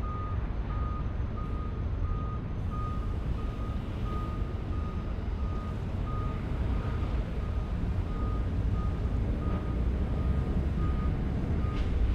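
Vehicle reversing alarm beeping steadily, about one and a half high beeps a second, over a continuous low rumble.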